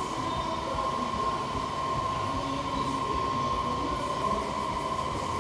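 Spray-painting equipment running steadily: a constant mechanical noise with a high whine, as a coat of paint is sprayed.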